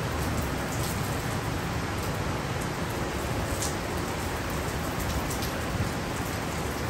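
Heavy wind-driven rain, a steady dense hiss with scattered sharp taps of individual drops striking.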